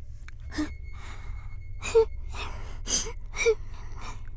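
A person's voice giving about four short breathy gasps, over a low steady hum.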